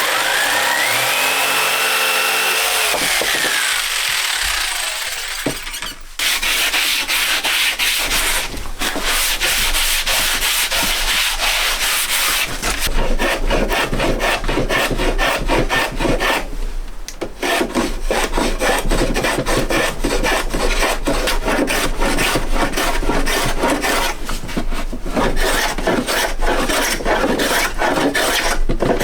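Wood being worked with an abrasive tool in rapid, repeated scraping strokes. In the first few seconds a motor whine rises and then falls away.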